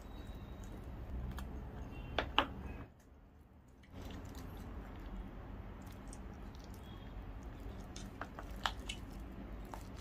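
Close-miked chewing of roasted pigeon meat, with a few sharp wet mouth clicks about two seconds in and again near the end. The sound cuts out for about a second around three seconds in.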